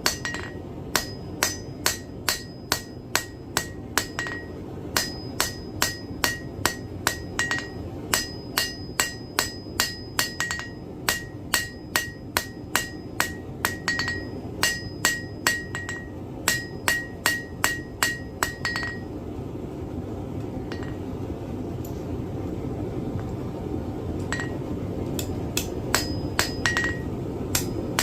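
Blacksmith's hammer striking hot iron on an anvil, about two blows a second, each with a high ringing ping, as a small brooch pin is drawn out thinner. The hammering breaks off for about six seconds past the middle, then resumes near the end, over a steady low rushing noise.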